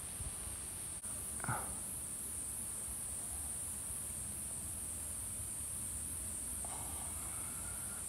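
Steady, high-pitched chorus of insects, with one brief sound about a second and a half in.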